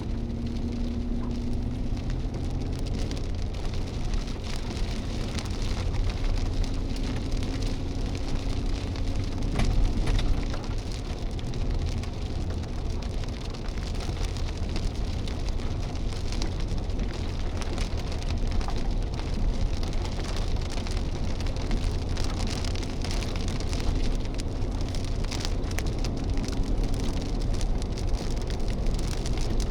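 Wind-driven hail pelting down in a dense, steady patter of small impacts, over a heavy low rumble of strong wind gusting.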